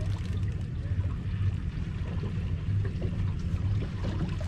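Boat engine running steadily with a low hum, under a wash of water noise.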